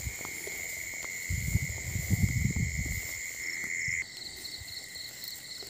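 Night insects trilling steadily in grass, one high trill stopping about four seconds in as a pulsing trill takes over. A low rumbling noise runs underneath for about two seconds, starting a second and a half in.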